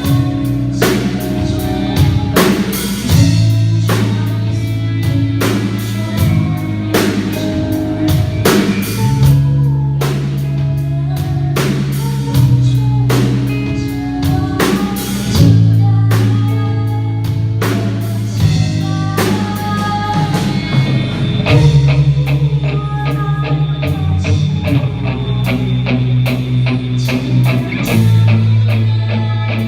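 A rock band playing an instrumental passage, with drum kit, bass and electric guitar. The drums beat steadily, then ease off about two-thirds of the way through while the guitar and bass notes carry on.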